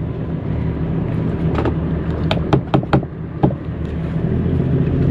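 A steady low motor hum runs throughout. Over it come several sharp clicks and taps, spread over a couple of seconds near the middle, as pliers are handled against a plywood panel.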